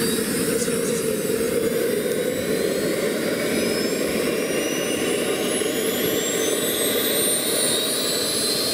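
Small model jet turbine running with a rushing noise and a high whine that rises slowly in pitch as the turbine spools up.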